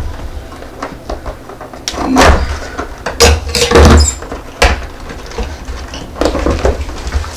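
Cardboard box being opened by hand: scraping and sliding of the cardboard, with several sharp knocks and bumps as it is handled.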